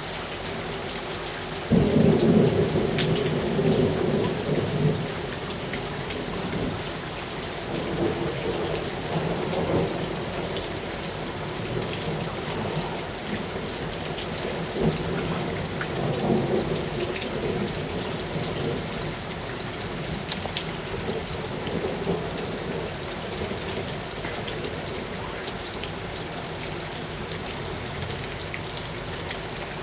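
Steady rain with a sudden loud thunderclap about two seconds in that rolls on for a few seconds. Several quieter rumbles of thunder follow.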